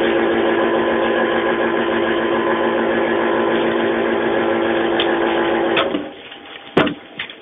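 Electric motor of a kitchen food machine running steadily with a constant hum, switched off about six seconds in, followed by a couple of sharp knocks.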